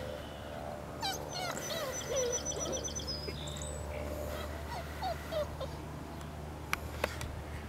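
Birds chirping and singing, with a quick run of high trilled notes in the first half and a few short lower whistled notes after, over a steady low hum. Two sharp clicks come near the end.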